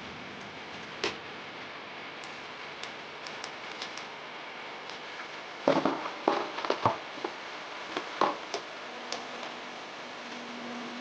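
Scattered clicks and knocks of toilet parts being handled during repair work, over a steady background hiss, with a quick run of knocks about six to seven seconds in.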